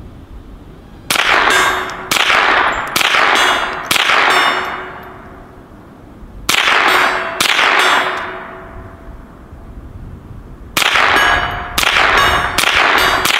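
A Ruger Charger .22 LR semi-automatic pistol is fired at a hanging steel gong, and each hit sets off a sharp metallic clang that rings on and fades. About a dozen shots come in three quick strings, a few a second, with pauses of a couple of seconds between strings.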